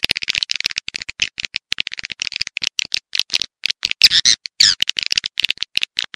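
Swiftlet lure call: a rapid, uneven run of short dry clicks and chirps from swiftlets, with a couple of longer twittering squeaks about four seconds in. It is the kind of call track played to draw swiftlets into a nesting house.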